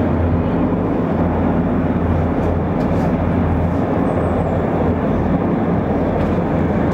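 A formation of helicopters flying overhead: a steady drone of rotors and engines with a strong low hum, unchanging in level.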